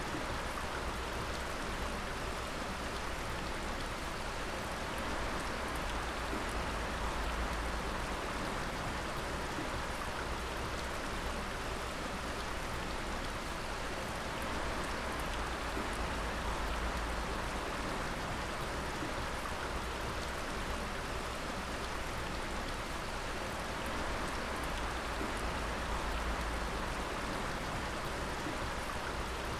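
Water dripping and pattering steadily, a dense, rain-like fall of drops over an even hiss.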